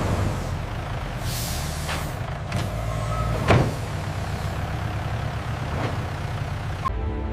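Factory machinery running with a steady low hum, a short hiss of air about a second in and several clunks, the loudest in the middle. Music comes in near the end.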